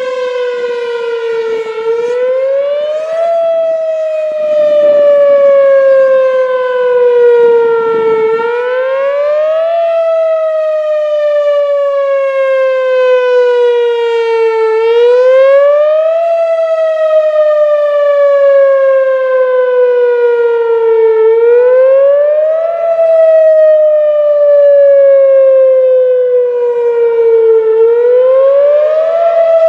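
A siren wailing in repeating cycles: the pitch rises quickly, then slides slowly down, over and over about every six and a half seconds.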